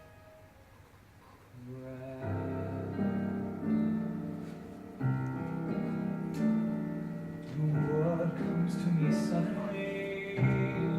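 Instrumental introduction to a musical theatre song, with piano: held chords that change about once a second, coming in after a short hush about a second and a half in.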